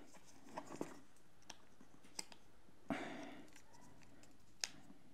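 Faint handling of a small plastic clip-on lamp clamp: a few light plastic clicks as it is folded and turned in the hand, a brief rustle around the middle, and one sharper click near the end.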